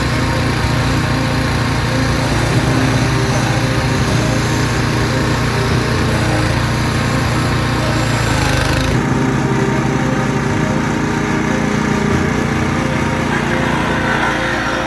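SSh-2 rail grinding machine running: a steady motor drone with a hissing grind over it. About nine seconds in the high hiss drops away sharply while the drone carries on.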